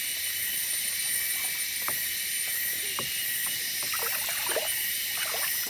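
Steady, high-pitched chorus of jungle insects, with faint water sloshing and small splashes scattered through it as a mesh net bag of frogs is moved about in shallow river water.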